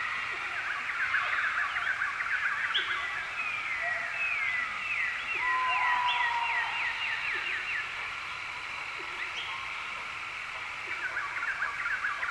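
A chorus of birds calling and singing at once: many short chirps and whistles, with a fast run of repeated down-slurred notes and a long steady whistle in the middle.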